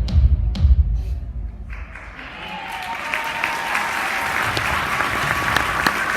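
Dance music with a heavy beat ends about a second in. After a short lull, an audience breaks into applause that builds and holds, with voices calling out over it.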